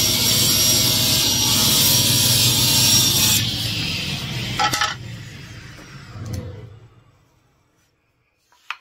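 Table saw ripping a chunk of old pine 2x6: the loud cutting noise ends about three and a half seconds in, then the saw spins down, fading to silence over the next few seconds. A sharp click comes about halfway and a light knock near the end.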